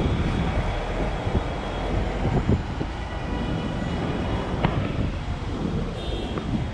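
Street traffic noise: a steady low rumble of passing vehicles, with wind buffeting the microphone. A single sharp click sounds a little past the middle.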